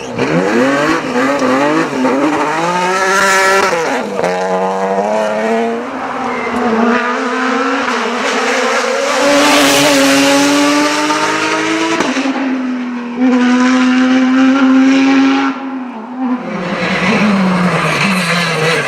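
Rally cars driven at full attack: engines revving hard, rising in pitch and dropping at each gear change, with a loud rush of noise as a car goes by about ten seconds in. The sound changes abruptly twice, about twelve seconds in and again near the end, as one car gives way to another.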